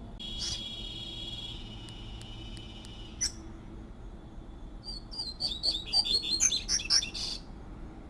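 Coleiro (seedeater) singing: a thin, steady high whistled note for the first few seconds, then, after a short gap, a loud, quick run of short chirping notes lasting about two and a half seconds.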